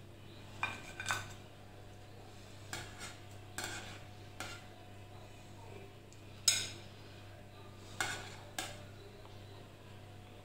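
Metal pizza server scraping and clinking against a baking tray and a ceramic plate while a pizza slice is lifted and set down, about eight short sharp clinks, the loudest about six and a half seconds in.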